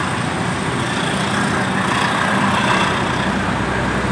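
Passenger train coaches rolling past on the rails, a steady rumble of wheels on track. A steady low hum joins about halfway through.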